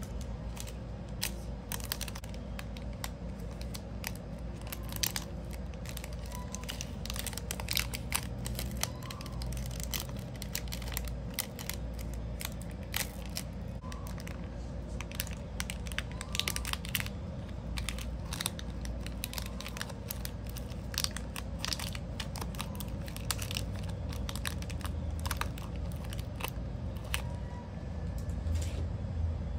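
Clear cellophane bag crinkling and crackling as hands slide a round bar of soap into it and handle the bag, with many small sharp crackles coming irregularly throughout.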